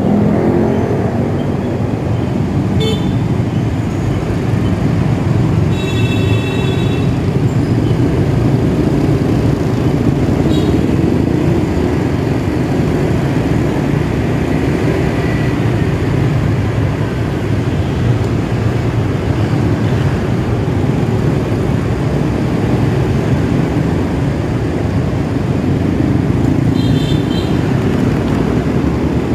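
Motorcycle riding in congested scooter traffic: a steady run of engine and road noise, with several short horn honks from nearby vehicles, the longest about six seconds in and another near the end.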